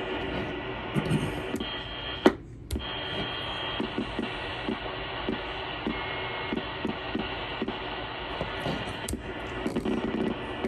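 Tram D-300 CB base station receiving an empty band: steady static hiss from its speaker, with a loud click about two seconds in and a brief thin whistle. Small regular clicks follow as the channel selector is turned through the channels.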